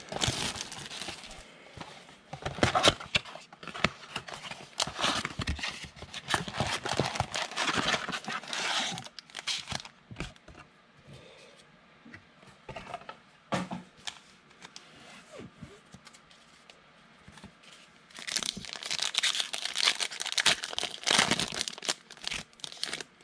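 Plastic shrink-wrap crinkling and tearing as it is stripped from a sealed box of 2020 Panini Mosaic football cards, followed by quieter handling of the cardboard box with a few clicks, then a foil card pack crinkling loudly as it is torn open near the end.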